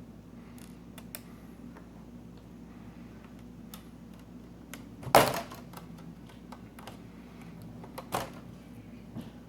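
Small clicks and taps of laptop parts and screws being handled during an LCD panel removal, with a louder clunk about five seconds in and another near the end.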